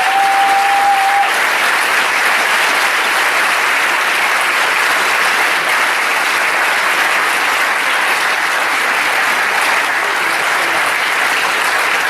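A large audience applauding, a steady dense clapping that carries on without a break. A brief steady high tone sounds over it at the very start.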